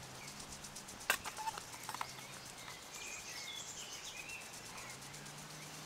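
Wooden spoon stirring pasta in a small aluminium pot, giving a sharp knock against the pot about a second in and a lighter one a second later, while small birds chirp over a faint steady low hum.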